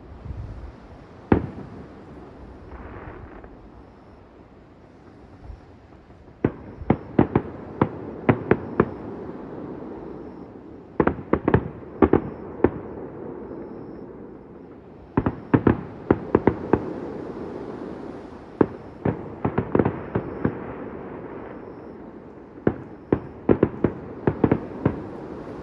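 Fireworks display: a single sharp bang about a second in, then salvos of several rapid bangs every few seconds, with a rumbling echo hanging between them.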